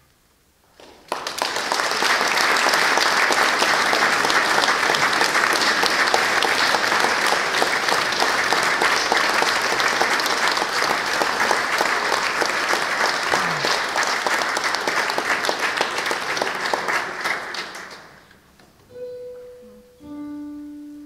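Church audience applauding for about seventeen seconds, starting a second in and fading away. Near the end a few single held notes sound.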